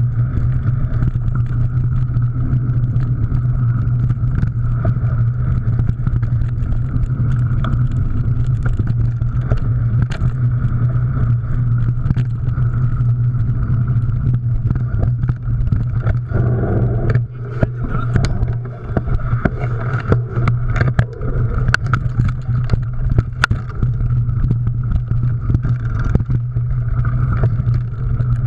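Mountain bike being ridden over rough trail: a steady rumble of wind and tyres with constant clicking and rattling from the bike, briefly easing about two-thirds of the way through.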